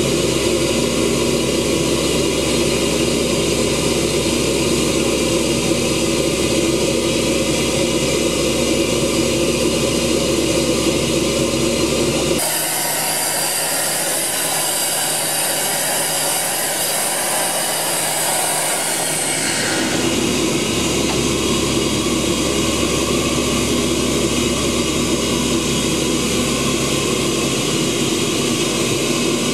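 Sandblasting rig running steadily, a loud hiss over a steady machine drone, as the abrasive blast cuts names into the memorial's marble through a stencil. The sound changes abruptly about twelve seconds in and again about twenty seconds in, the middle stretch carrying a brighter, higher hiss.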